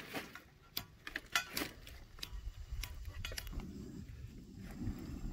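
A single-burner propane camp stove being lit: a few light, scattered clicks as it is worked, then from a little past halfway a faint, steady low rush as the burner runs.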